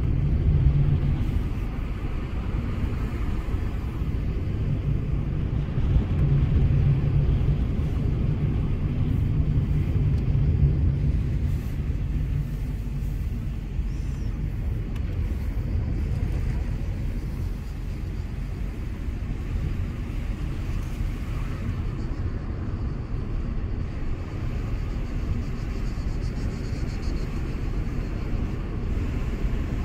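Car cabin noise while driving: a steady low engine and tyre rumble, with a low hum that is strongest in roughly the first dozen seconds and then eases a little.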